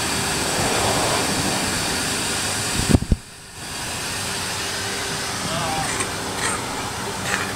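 Steady wind rush on the microphone, with two sharp thumps about three seconds in, then briefly quieter before the rush returns.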